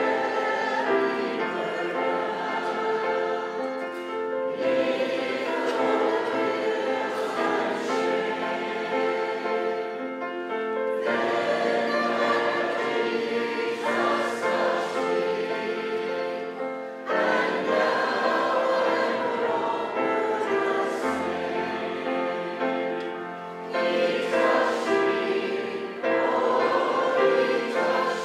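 Group of voices singing a hymn together, in phrases of a few seconds with held notes.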